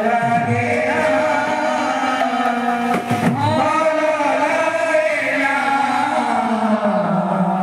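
Male voices chanting a devotional kirtan in unison, with a two-headed barrel drum and small hand cymbals, the singing holding long steady notes.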